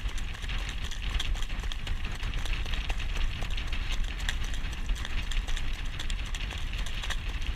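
Hoofbeats of a young Standardbred trotting in harness, heard from the jog cart behind it, over a steady low rumble from wind and the cart rolling.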